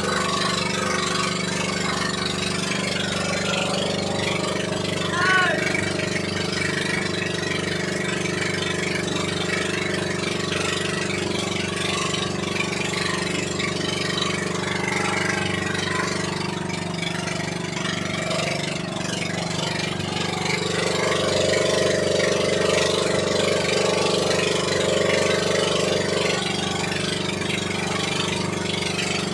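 Outrigger fishing boat's engine running steadily, growing a little louder for a few seconds about two-thirds of the way through.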